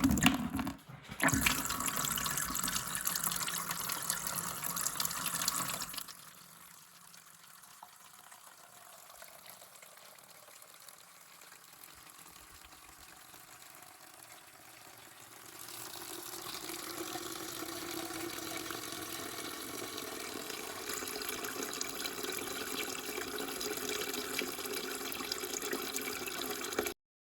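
Water from a JBL CristalProfi e902 canister filter's outflow running steadily into a container during a flow-rate test. It is loud for the first few seconds, much quieter through the middle, rises again about halfway through, and cuts off suddenly at the end.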